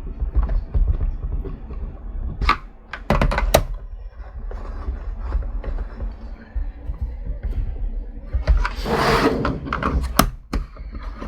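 Clicks and knocks of a small plastic computer case and its parts being handled and fitted together during reassembly, with a short scraping rustle about nine seconds in.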